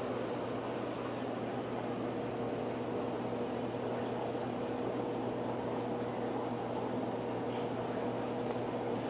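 Steady mechanical hum with a low droning tone and a fainter higher whine, unchanging throughout: equipment running near the aquarium.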